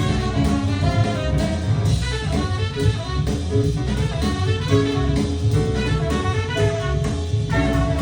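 Music with drums and strong bass, played back through a pair of Cabasse Minorca MC40 three-way coaxial bookshelf speakers during a listening demo.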